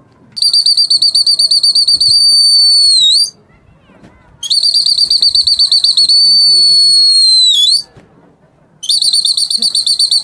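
A loud, shrill whistle blown in three long blasts, each about three seconds. Each blast opens with a fast trill, settles into a steady tone and dips in pitch as it ends.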